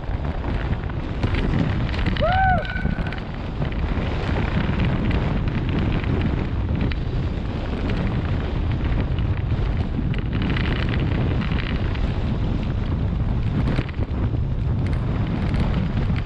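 Wind buffeting the camera microphone on a fast road-bike descent: a steady, heavy low rumble of rushing air, with a short squeak about two seconds in.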